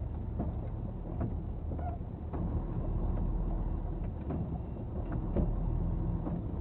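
Engine and road noise of a moving vehicle heard from inside the cab through a dash camera's microphone: a steady low rumble with a few faint clicks.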